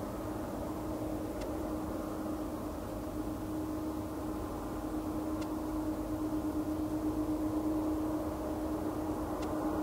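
Airbus A380-861 on landing approach, its four Engine Alliance GP7200 turbofans giving a steady drone with a steady hum, growing slightly louder in the second half as the jet comes closer.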